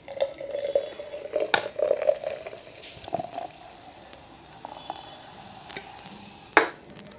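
Canned drink poured into a glass mason jar mug: a steady stream of liquid whose pitch rises slowly as the glass fills. A sharp knock comes near the end.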